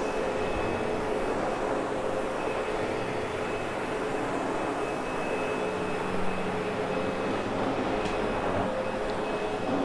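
Sebo X8 upright vacuum cleaner running steadily, a constant motor hum with a faint high whine, used to groom the rug pile after cleaning.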